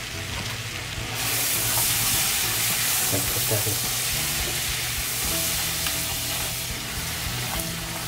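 Melted butter with garlic, spices and brown sugar sizzling in a metal pot as a fork stirs and breaks up the butter stick. The sizzle gets louder about a second in and eases off near the end.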